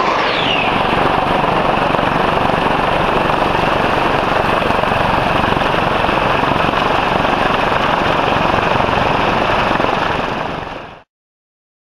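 Twin TF34 turbofan engines of an A-10 Thunderbolt II taxiing close by: a loud, steady jet rush with a high whine falling in pitch in the first second. The sound fades and cuts off about eleven seconds in.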